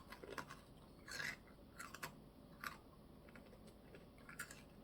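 Faint, scattered small scratches and crackles from a chocolate cake decoration with a crisp cracker inside being picked apart and eaten, at irregular moments.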